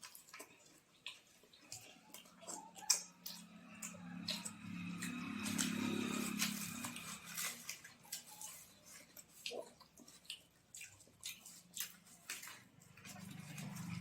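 Wet chewing and lip-smacking from someone eating puri with chole, a string of irregular small clicks and squishes. A low voice sounds for a few seconds in the middle, and another starts near the end.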